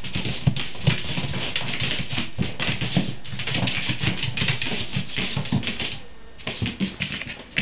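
A cat's paws and claws scrabbling and skittering on a hard floor while it chases and pounces: a rapid, dense patter of clicks and soft thumps that eases off briefly about six seconds in, then resumes in scattered taps.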